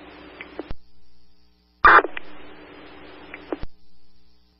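Scanner audio of a fire radio channel: a keyed-up transmission with static hiss and no words, cut off by a squelch click. A short loud burst follows, then another stretch of open-carrier hiss that ends in a click.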